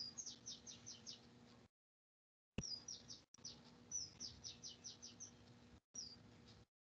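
A small bird singing faintly: three phrases of quick, high, downward-sliding chirps, each phrase a few notes long, over a faint steady hum.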